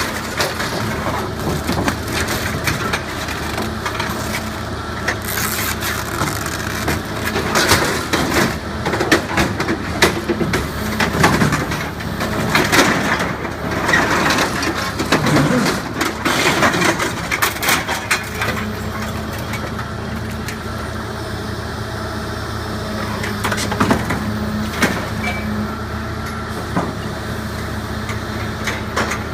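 Heavy machinery's diesel engine running steadily while scrap metal from a bulldozer is crushed and torn apart. There are repeated crunches and cracks, coming thickest in the middle and thinning out toward the end.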